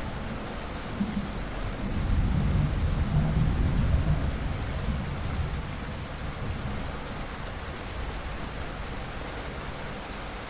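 Steady rain falling, with a low rumble of thunder that swells about two seconds in and fades away a few seconds later.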